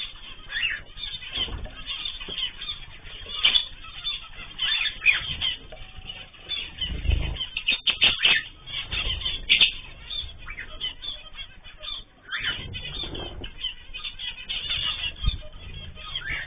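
Cage birds such as cockatiels, zebra finches and canaries fluttering and calling: irregular bursts of wingbeats mixed with short chirps and squawks.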